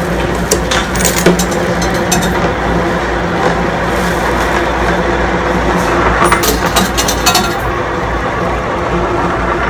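A coin rolling round inside a coin donation box, a steady rolling rattle with a few light clicks.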